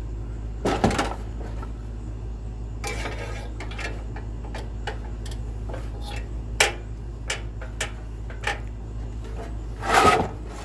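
Scattered small metallic clicks and taps of a socket and screw knocking about while someone fumbles to seat the screw in a hard-to-reach hole, with two louder scraping knocks about a second in and near the end, over a steady low hum.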